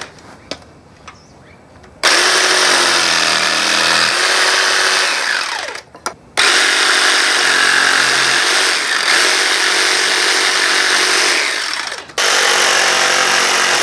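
Cordless jigsaw cutting an oak board. The saw runs steadily in two long spells with a brief stop about six seconds in, and it cuts out again near the end.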